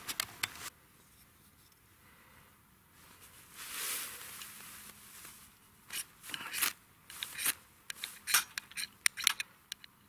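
A firesteel (ferro rod) struck against a steel knife to throw sparks onto tinder and light a fire: a quick run of short, sharp scrapes over the last few seconds, with a softer rustle about four seconds in.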